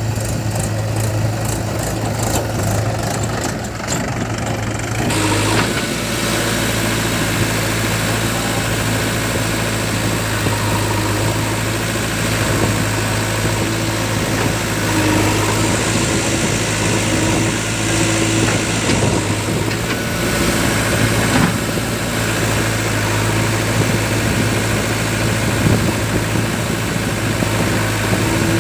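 Diesel engines of a JCB 3DX backhoe loader and a Mahindra 475 DI tractor running steadily at work, a constant low engine hum, with a shift in the sound about five seconds in.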